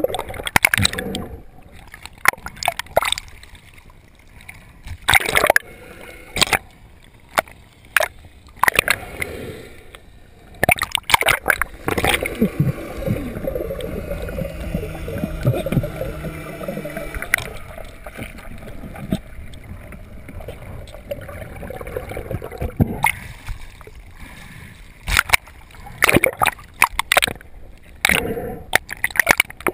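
Water sloshing and gurgling around a camera held just under the sea surface, broken by many sharp splashes and knocks against it. For a few seconds in the middle a muffled, steady low tone runs under the water noise.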